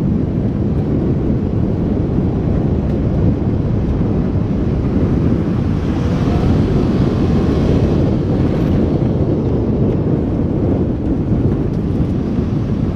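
UTV running steadily as it drives along a gravel road, engine and tyre noise mixed with wind buffeting an open-cab microphone.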